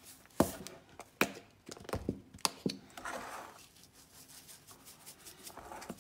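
Salt canister and pepper jar handled over a stone countertop and a metal mixing bowl: several sharp knocks and clicks, then a short hiss of salt poured into the bowl about three seconds in, followed by faint light taps.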